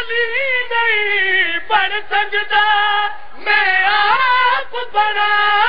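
A single high man's voice chanting a devotional qaseeda in long, held notes that waver and bend in pitch, with short breaks between phrases.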